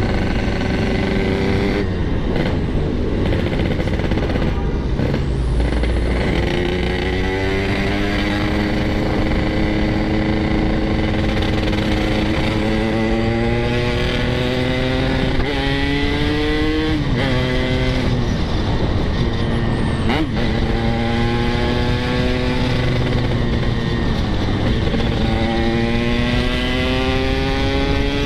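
Yamaha RX-King two-stroke single-cylinder motorcycle engine pulling hard under way. Its pitch climbs and drops back again and again as the gears change, over a steady rush of wind. The engine has just been repaired after seizing and is running on a replacement cylinder block.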